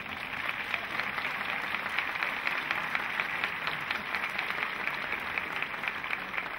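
Audience applauding: dense, steady clapping that swells in the first second.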